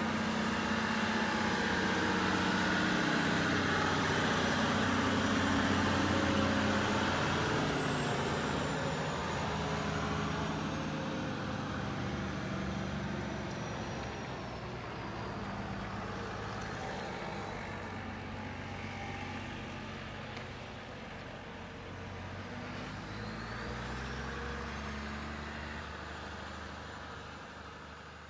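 Remote-control scale off-road truck running: a low steady drone, with a thin high electric-motor whine that falls slowly and rises again later. The sound fades toward the end.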